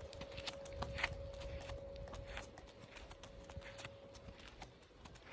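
Faint, irregular light tapping, like small footsteps, over a steady low hum.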